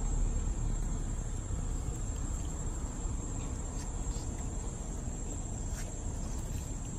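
Insects trilling in one steady, high-pitched drone over a low rumble.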